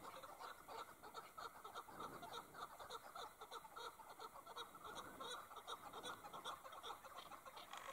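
Chukar partridges calling: a rapid, faint run of short clucking notes, several a second.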